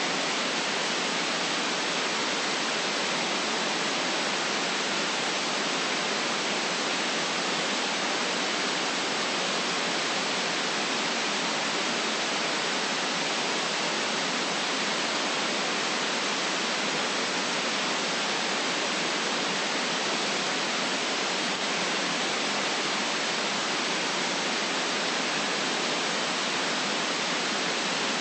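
Steady electronic white noise: an even, unchanging hiss with no low rumble, its top cut off sharply.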